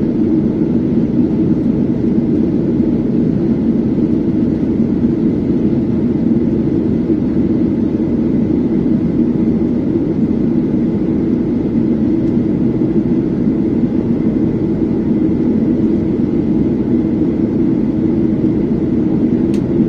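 Steady cabin drone of a Boeing 737-800 in flight, heard from a window seat: engine and airflow noise, deep and even, with a faint click near the end.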